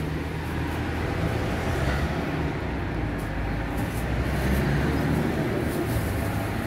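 Steady city street noise: a low rumble of motor traffic.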